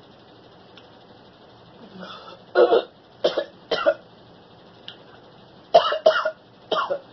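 A woman coughing in two fits of three short, loud coughs, the second fit about two seconds after the first, her throat irritated by the heat of very spicy food.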